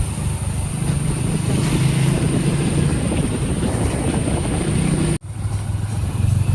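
Steady low rumble of a scooter ride: engine drone mixed with wind buffeting the microphone. It cuts off abruptly about five seconds in and starts again at once.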